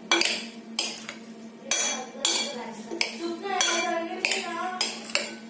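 A spatula stirring soaked sabudana (sago pearls) in a bowl, scraping and knocking against the bowl in about nine quick strokes, with a few short squeaks of the spatula midway through.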